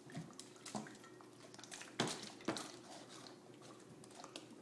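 Water sloshing and swirling in a taped-together two-bottle tornado toy as it is flipped over and spun, with a few sharp knocks of the bottles being handled, the loudest about two seconds in.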